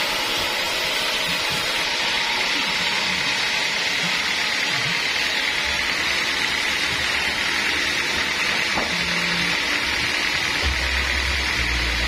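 Band sawmill ripping lengthwise through an acacia mangium log: the blade running through the wood with a steady high-pitched hiss over the machine's hum. A low rumble joins near the end.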